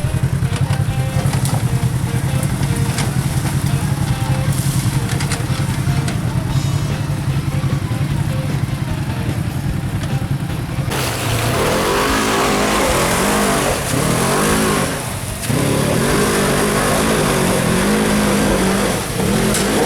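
Side-by-side UTV engine working hard on a steep hill climb: a steady drone at first, then from about eleven seconds in, revving up and down repeatedly.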